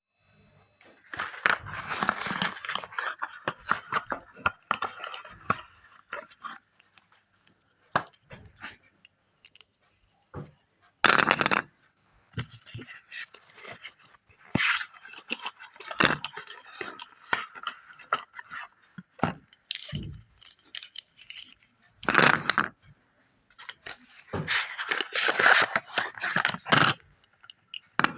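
Wet chalk being crushed and crumbled, giving crackly crunching and scraping in irregular bursts with short pauses between.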